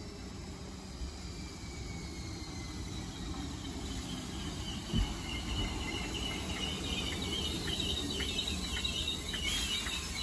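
Merseyrail electric multiple unit pulling into a station and braking to a stop: a high whine that falls in pitch as it slows, turning to a high brake squeal with light ticking near the end, over low running rumble that grows louder. A brief low thump about halfway through.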